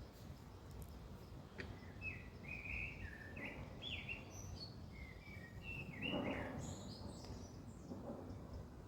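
A songbird sings a varied phrase of clear chirps and warbles, starting about two seconds in and stopping shortly before the end. Faint outdoor background noise lies underneath.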